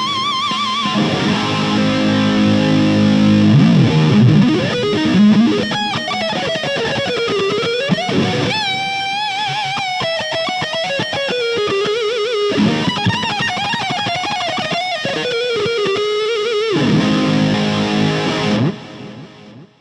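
Electric guitar on a 2011 Gibson Les Paul Goldtop with Celentano pickups, playing a lead line. Chords at first, then long held notes with wide vibrato and bends. The playing stops about a second before the end.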